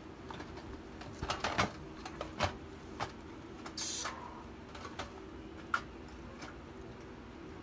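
Clicks and knocks of a portable butane gas stove and its hard carry case being handled, in scattered taps, with a short rustle of plastic wrapping about four seconds in.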